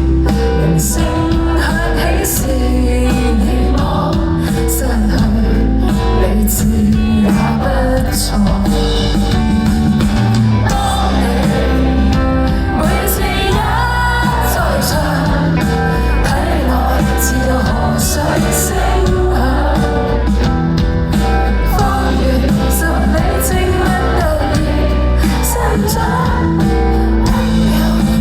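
Live band performance of an indie pop song: singing over bass, drums and cymbals, at a steady loud level.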